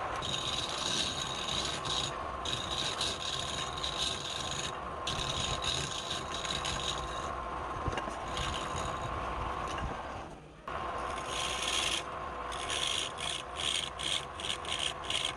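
Wood lathe running with a steady hum while a tool is worked against the spinning wood, a scraping rasp that comes and goes in repeated passes. The sound drops out briefly about ten seconds in.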